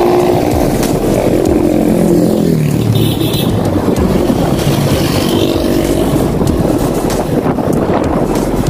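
Motor vehicles passing on the road: an engine's note falls steadily in pitch over the first three seconds as it goes by, with another engine heard about five seconds in, over a steady rumble of ride and road noise.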